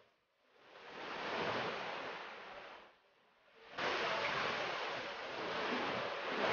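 Sea waves washing against rock ledges: one surge swells up and dies away, then after about four seconds the surf comes in abruptly and stays steady, with some wind.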